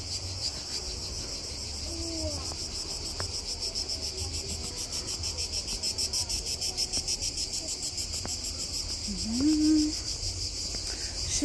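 Steady insect chorus: a high, continuous shrill with a fine even pulse. A short low voice sound rises briefly near the end.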